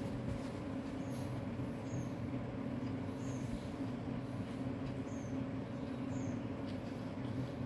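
Steady low rumble and hum of a lit gas stove burner under a pan of simmering curry, with faint short high chirps about once a second.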